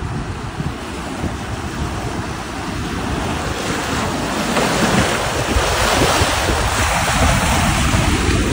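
Wind buffeting the microphone over the wash and splash of shallow sea surf, a steady rushing noise that grows gradually louder.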